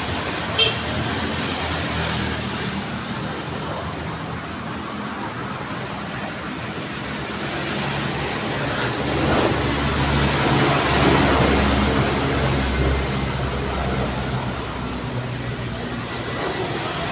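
Street traffic running steadily, with one vehicle passing louder and deeper from about nine to thirteen seconds in. A sharp click sounds about half a second in.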